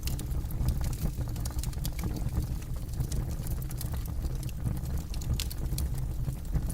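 Campfire burning, with frequent sharp, irregular crackles and pops over a steady low rumble.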